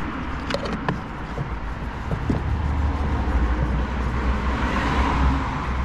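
A steady rumble of background vehicle noise that swells in the second half, with a few light clicks about half a second in.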